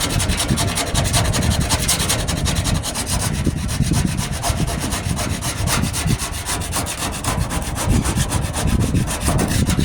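Hand sanding and rasping of hardened Bondo body filler on a steel wheel-arch patch: a continuous, fast back-and-forth scraping.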